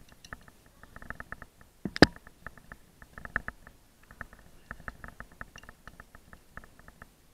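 A rappel device, carabiners and climbing rope being handled while the device is set on the rope: runs of quick clicks and rustles, with one sharp knock about two seconds in, the loudest sound.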